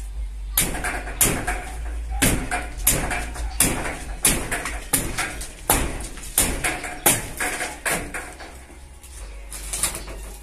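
Hammer blows on the wooden roof framing, struck in a steady rhythm of about one every two-thirds of a second, each with a short ring. There is a brief pause near the end, then a few more blows.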